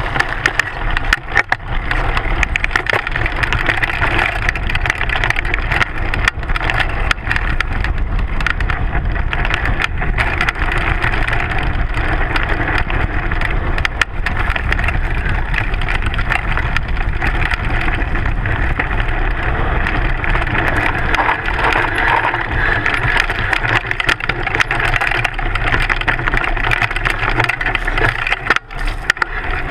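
Mountain bike descending fast over gravel and dirt trail, heard from a camera mounted on the front fork: steady tyre rumble and wind on the microphone, with a constant rattle of clicks and knocks from the bike and loose stones.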